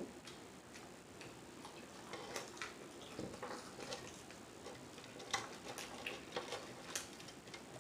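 Faint, irregular wet clicks and smacks of someone chewing food close to the microphone.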